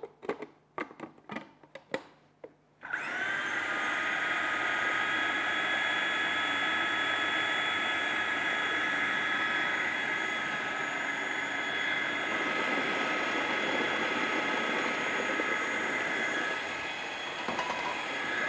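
A few light clicks, then a food processor motor starts about three seconds in and runs steadily with a whine, blending a mixture of quinoa, avocado, tahini and butter into a purée. It stops right at the end.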